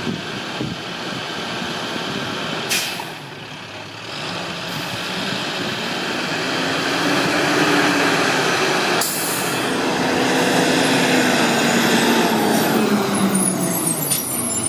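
Garbage truck's diesel engine working, building up in loudness from about four seconds in, with two short hisses of air brakes, one about three seconds in and one about nine seconds in.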